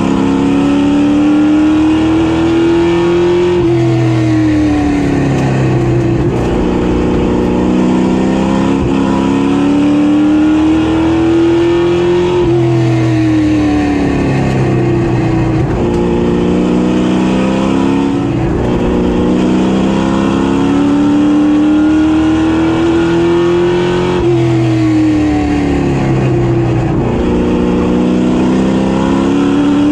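Street stock race car engine running laps at speed: its pitch climbs steadily under acceleration, then drops as the driver lifts, repeating roughly every ten seconds. The car runs on a newly fitted carburetor that is being broken in.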